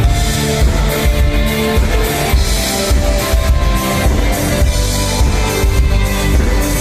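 Live band music: a drum kit keeping a steady beat under sustained pitched chords.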